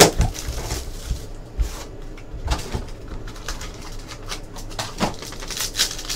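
Cardboard trading-card box being handled, with scattered knocks and taps, then a foil card-pack wrapper starting to crinkle near the end.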